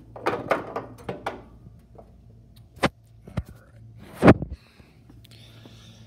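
Handling knocks and clatter: a quick run of knocks, two single clacks, then one heavier thump about four seconds in, over a steady low hum.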